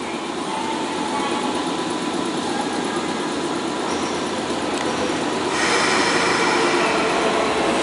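Nankai limited express 'Kōya' electric train pulling slowly into a station platform, its running noise and wheels on the rails steady at first, then getting louder about five and a half seconds in as the train draws level.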